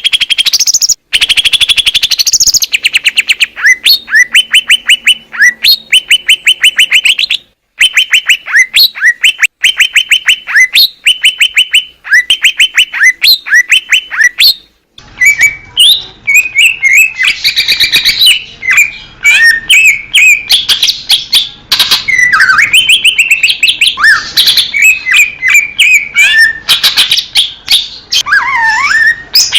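Cucak ijo (green leafbird) singing: runs of rapid, evenly repeated high chirps about a second long each. A brief gap about halfway through gives way to a more varied warbling song of rising and falling whistles.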